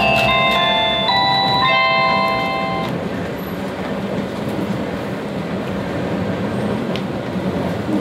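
A short chime melody of bell-like tones, ending about three seconds in, over the steady rumble of a train running, heard from inside the carriage.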